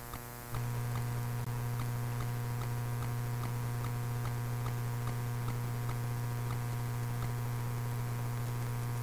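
Steady electrical hum in a Robinson R44 helicopter's cockpit with the engine not yet running. It gets louder about half a second in, and a faint tick repeats a little over twice a second.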